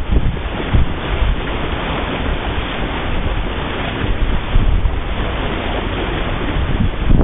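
Wind buffeting the microphone over a steady rush of water along the hull of a small sailboat planing at speed.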